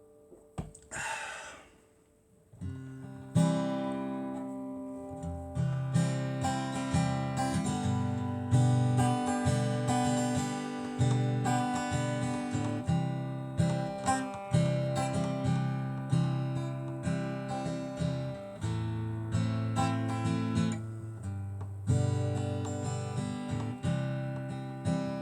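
Recorded music: after a fading note and a brief hiss, an acoustic guitar intro starts about three seconds in, strummed chords over a steady bass line, with no singing.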